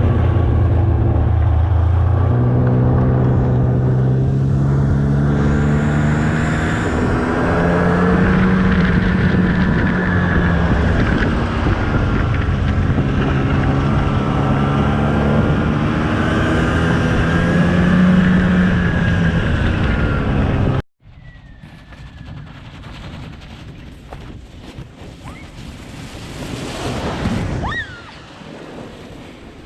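Snowmobile engine running loud, its pitch rising and falling with the throttle. About two-thirds of the way through it cuts off abruptly, leaving quieter wind noise on the microphone.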